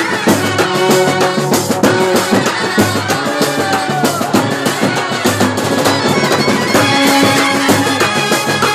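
Kerala brass band playing live: trumpets and clarinets carry a melody in held notes over fast, steady beating of bass drums and side drums.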